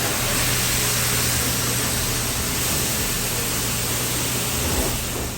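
Steady rushing noise over a low hum, unchanging throughout.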